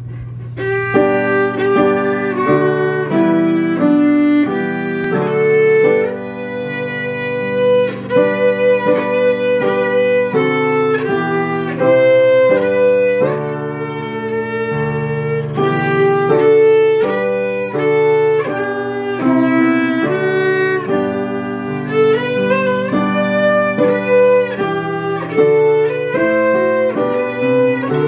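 A violin plays a melody of sustained bowed notes, with piano accompaniment underneath.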